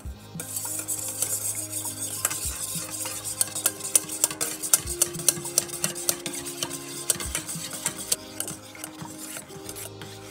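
Wire balloon whisk beating heavy cream in a stainless steel bowl: fast, continuous strokes, the wires ticking and scraping against the metal as the cream froths and thickens. The whisking starts about half a second in.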